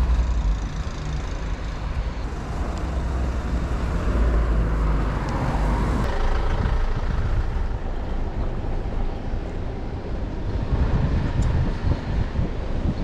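Road traffic on a town street: cars passing close by, a continuous low rumble with a swell of passing-vehicle noise about halfway through.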